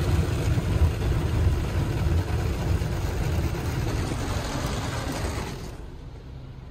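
Water from a Ryko Voyager II automatic car wash spraying against the car, heard from inside the cabin as a steady rushing noise over a low rumble. The spray stops abruptly near the end, leaving a faint low hum.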